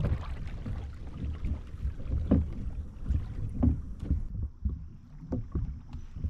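Water sloshing against a fishing kayak's hull as it moves, over a low rumble, with a few dull knocks a second or more apart.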